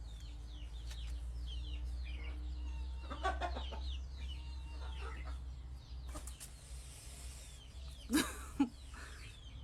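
Birds chirping: many short, quick, falling calls over a low steady hum, with two louder calls about a second before the end.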